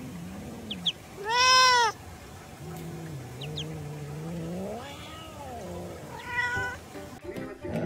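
A domestic cat meowing: one loud meow about a second and a half in, then a long, low, drawn-out call, and a shorter, higher meow near the end.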